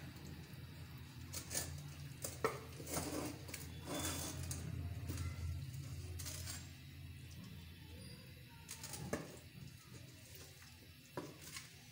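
A ladle clinking and scraping against a metal cooking pot and a plate as curry is served, with light scattered knocks, most of them in the first six seconds and a couple more later. A steady low hum runs underneath.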